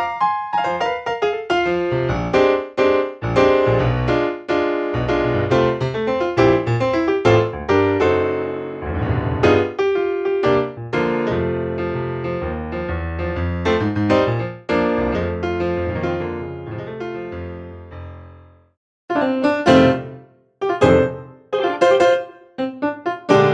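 Sampled piano-type keyboard preset from a Kontakt sound library, played as a run of struck notes and chords. About eighteen seconds in it fades out, and after a short break it comes back as short, separate chords.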